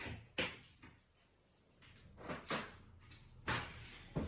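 A handful of short knocks and scrapes, something being wedged and worked against the truck's body, with a brief lull about a second in.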